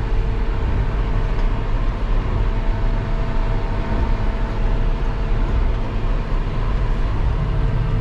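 Tractor engine running steadily under load, heard from inside the cab as it pulls a soil-cultivating harrow through the field.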